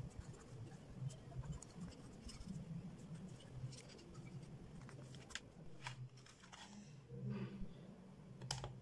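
Faint scratching of a pencil on drawing paper, with scattered small clicks and taps, over a low room hum.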